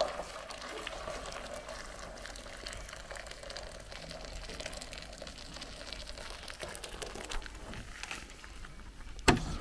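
Liquid poured in a steady stream from a pot into a large metal basin. A sharp knock comes near the end.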